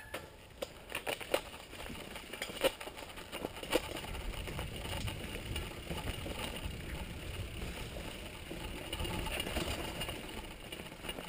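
Downhill mountain bike rolling over a rocky dirt trail: sharp knocks and rattles from the bike as it hits stones in the first few seconds, then a steady rumble of tyres on gravel, with some wind on the microphone.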